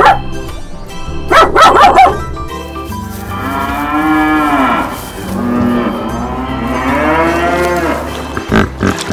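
Cattle mooing: two long moos, the first rising and falling, the second rising slowly, after a short loud burst of sound about a second and a half in.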